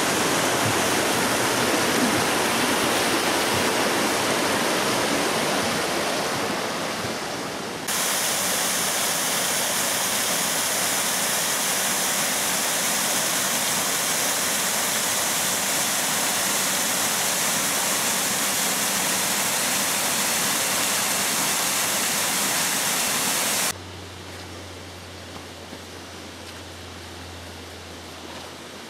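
Steady rushing of a forest stream and small waterfall. About eight seconds in it cuts to a louder, hissier rush; near the end the water drops away to a much quieter stretch with a low steady hum.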